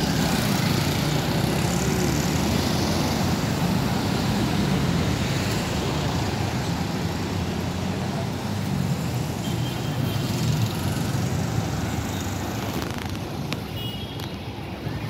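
Road traffic at a city intersection: cars and a pickup truck driving past, a steady mix of engines and tyres that eases off slightly near the end.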